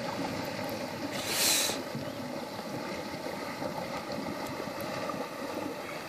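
A 4x4 wading through a river, its engine running with the water churning around it, and a brief hiss about a second and a half in. The engine is sounding bad, the exhaust going "plop plop" under water.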